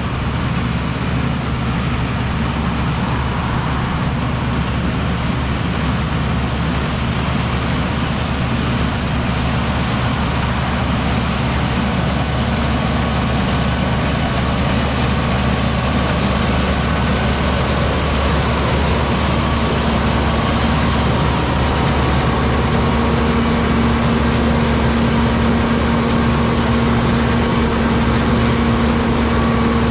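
Heavy farm machinery engine running steadily through a corn harvest, growing slightly louder, with a steady whine coming in about twenty seconds in.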